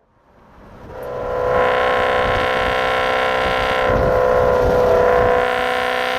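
Supercharged BMW E92 M3's V8 engine running hard, fading in, then holding a steady high pitch, with a change in tone about four seconds in and the pitch starting to climb near the end.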